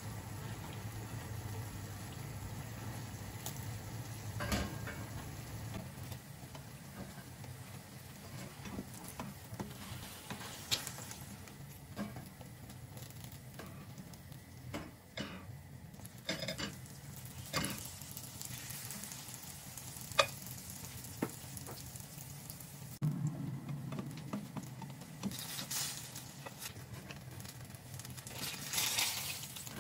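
Banana spring rolls frying in hot oil in a pan, sizzling steadily. Scattered sharp clicks and taps come from the spatula and tongs against the pan as the rolls are lifted out.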